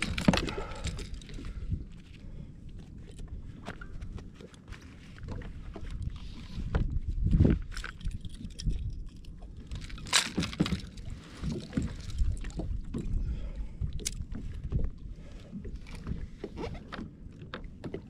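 Water lapping and sloshing against a plastic sit-on-top kayak at sea, with wind rumbling on the microphone and scattered knocks and clicks of gear being handled on the deck; the sharpest knock comes about ten seconds in.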